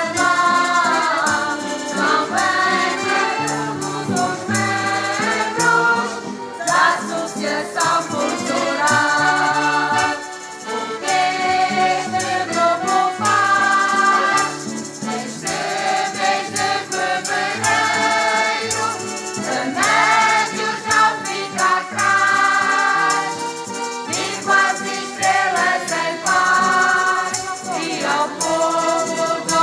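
A mixed folk choir of men and women singing a song together, accompanied by two piano accordions and an acoustic guitar.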